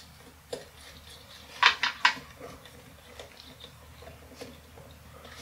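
Small clicks and rattles of hands twisting plastic wire nuts onto capacitor wire leads against a metal motor housing, with a quick run of three sharp clicks about a second and a half in.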